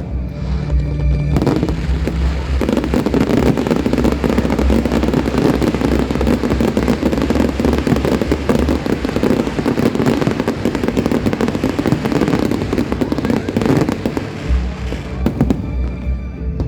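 Fireworks going off in a dense, continuous barrage of bangs and crackles, with show music playing underneath. The barrage builds about a second in and thins out near the end.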